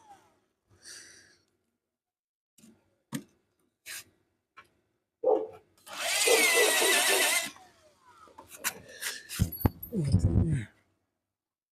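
Workshop tool work on the engine base: scattered knocks and clicks, and a power drill running briefly for about a second and a half around six seconds in, followed by a cluster of knocks.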